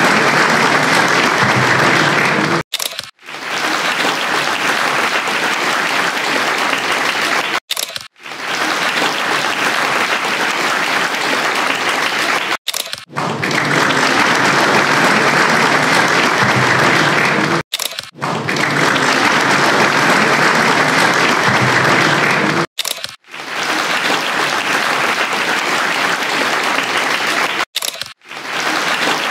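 Audience applauding steadily, with sharp brief breaks about every five seconds.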